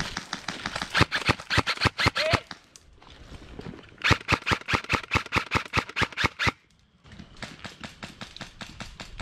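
Airsoft rifle fire: two rapid strings of sharp shots, about six or seven a second, the second one longer. Fainter shots follow near the end.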